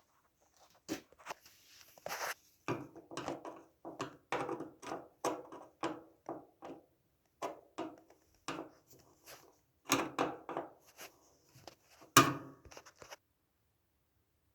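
Phillips screwdriver working screws out of a dryer's top panel: a string of irregular short metal clicks and scrapes, with a louder knock about twelve seconds in, then the sound cuts off.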